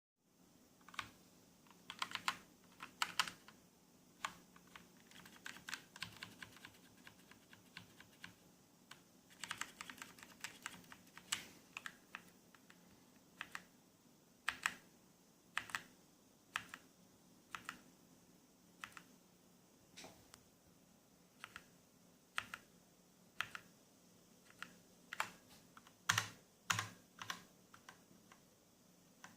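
Keys being typed on a Motospeed CK104 mechanical keyboard with red linear switches. Quick runs of keystrokes come early and again about ten seconds in, then single keys are pressed about once a second, with a few louder strikes near the end.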